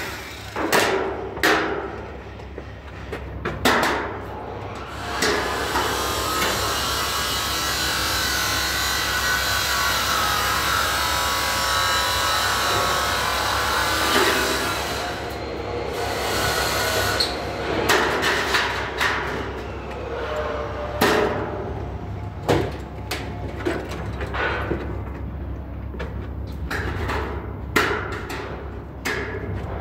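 Steel stud framing work: scattered sharp knocks and metallic clicks of steel studs and tools being handled, with a steady mechanical running sound for about ten seconds from about five seconds in.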